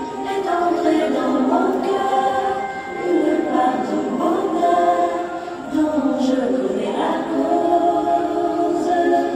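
Choral singing with long held notes, the music of an outdoor sound-and-light show played over its sound system.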